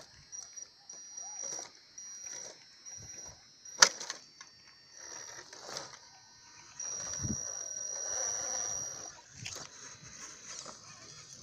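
Electric drive of an RC scale crawler (Defender 90 on a Gelande 2 chassis) whining in short spurts as it creeps over rock and grass, longest near the middle of the stretch, with one sharp knock about four seconds in.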